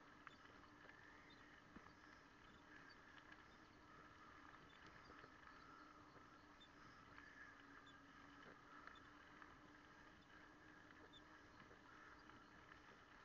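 Near silence: a faint steady hum with scattered light ticks and clicks, as heard through a camera moving along a gravel trail.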